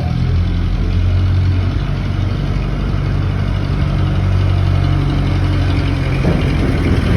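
Truck engine running at a steady idle, a loud low rumble.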